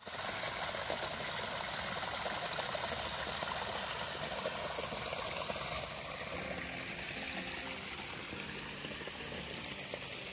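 Irrigation water running down a small channel into a flooded rice paddy: a steady rushing trickle. Faint background music comes in about halfway through.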